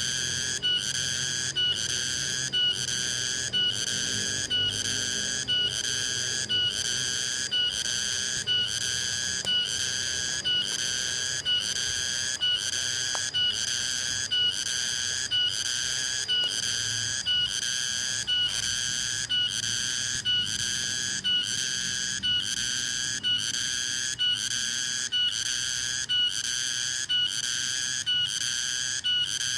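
Cicada (tonggeret) calling loudly: a shrill, high buzz that pulses evenly about three times every two seconds without a break.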